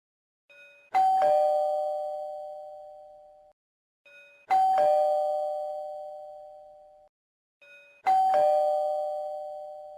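Two-note ding-dong doorbell chime, a higher note then a lower one, rung three times about three and a half seconds apart. Each is preceded by a faint short sound and rings out, slowly fading.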